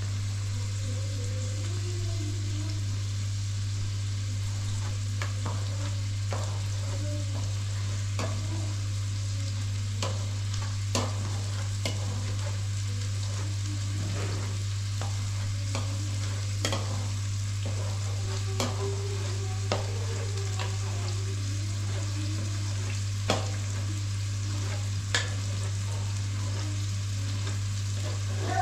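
Food sizzling as it fries in a pan, a steady hiss, with scattered sharp clicks from stirring and a steady low hum underneath.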